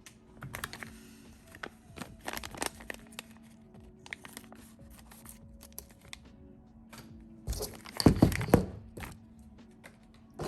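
Small plastic RC truck parts being handled: scattered light clicks and taps, with a louder stretch of crinkly rustling and knocks about eight seconds in.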